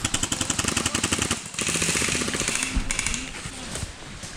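Airsoft gun firing on full auto: two long bursts of rapid, evenly spaced shots, the second starting right after the first, then it stops about three seconds in.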